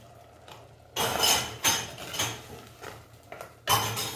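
Steel ladle stirring a wet tomato-and-spice masala in a clay pot: after about a second of quiet, a run of scraping, sloshing strokes, and one sharp stroke near the end.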